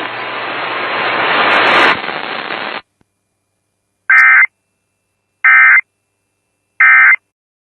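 Radio static hiss with a low hum, growing louder, cuts off after about three seconds. After a short silence come three identical short warbling digital data bursts about 1.3 s apart: the Emergency Alert System SAME end-of-message tones that close a weather alert.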